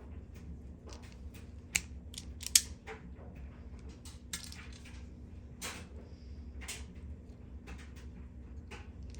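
Automatic wire strippers clamping and stripping insulation off wire ends: two sharp snaps about two seconds in, then scattered clicks and rustles of the tool and wires being handled.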